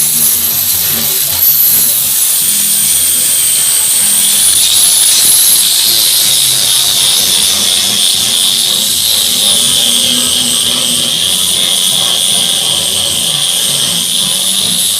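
Handheld electric power tool running on wood, a loud high-pitched motor whine that drifts slowly up and down in pitch as the load changes.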